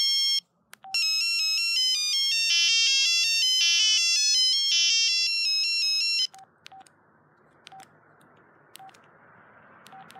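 Samsung mobile phone playing a ringtone preview, a fast electronic beeping melody of quick notes that cuts off after about five seconds. After that come short single key-press beeps, one every second or so, as the menu buttons are pressed.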